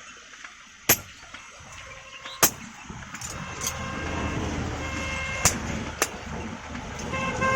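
Four sharp hammer blows on metal, irregularly spaced, over a rising background of road traffic, with a horn sounding near the end.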